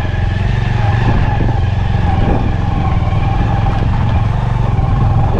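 Motorcycle engine running steadily, a loud, even drone with no clear revving.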